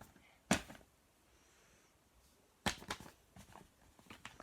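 A sharp click about half a second in, then a quick cluster of clicks and taps near the end, as small plastic fidget toys are handled.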